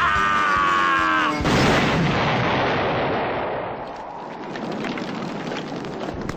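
Cartoon characters screaming, the screams sliding down in pitch and then cut off about a second and a half in by a loud crash boom. The boom rumbles away over a couple of seconds, and scattered faint crackles follow.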